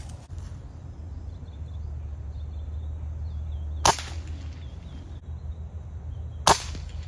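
Two sharp shots from a .25-calibre Kervan Arms Air Boss air rifle, about two and a half seconds apart, over a steady low rumble.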